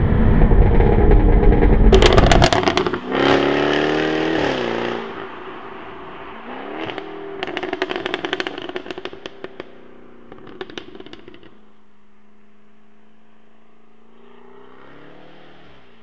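Jaguar F-Type R's supercharged 5.0-litre V8 pulling hard, then lifting off with a burst of exhaust pops and crackles. The revs dip and rise as it changes gear, with scattered crackling on the overrun, and it settles to a quieter steady run.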